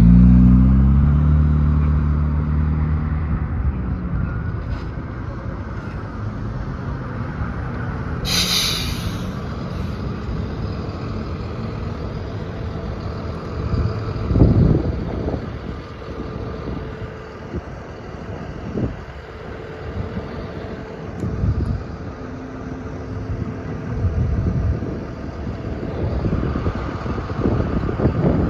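City road traffic passing: car engines and tyre noise. A vehicle's engine goes by close at the start, its pitch falling. A short high hiss comes about eight seconds in. Near the end the sound builds as a NABI 40-LFW hybrid-electric transit bus draws level.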